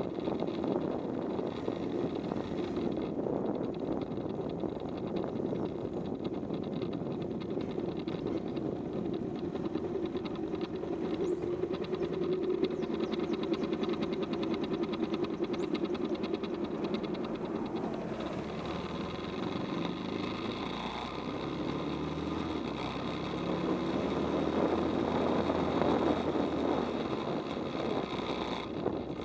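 Bajaj Pulsar motorcycle's single-cylinder four-stroke engine running steadily while the bike is ridden, getting louder for a few seconds near the end before easing off.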